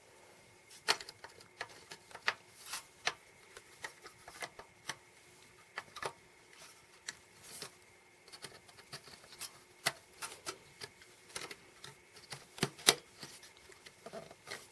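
Irregular small clicks and taps of memory modules being handled, unlatched and seated in the slots of a 2011 Mac Pro memory tray, loudest about a second in and near the end, over a faint steady tone.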